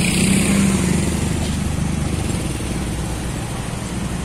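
Car engines idling in a slow queue of traffic, the nearest one close by. A steady low hum, a little louder in the first second.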